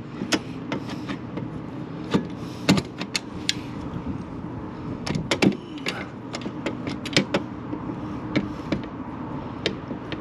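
Scattered sharp clicks and knocks of small metal hardware and hand tools being handled, with a cluster of them about five to seven seconds in, over a steady low hum.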